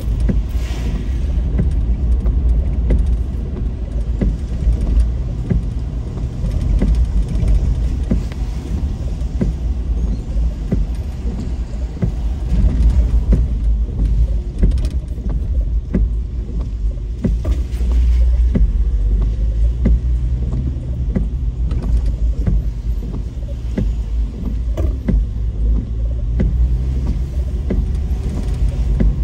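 Car driving: a steady low rumble of engine and road heard from inside the cabin, with many small clicks and knocks throughout.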